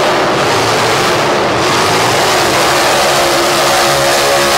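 Pro Stock four-wheel-drive pulling truck's engine running loud and steady at full throttle while it hauls the weight-transfer sled down the dirt track.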